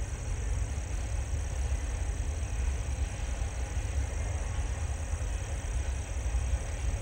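Distant double-stack container freight train rolling past: a steady low rumble of the cars on the rails.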